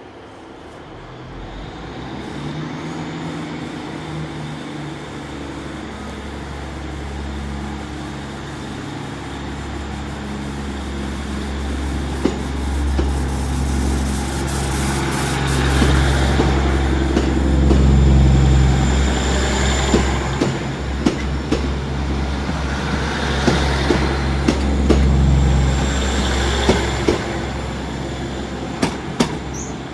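Great Western Railway diesel multiple unit pulling away from the platform: its engines run low and steady and grow louder as it gets going. From about twelve seconds in, the wheels click over rail joints and points.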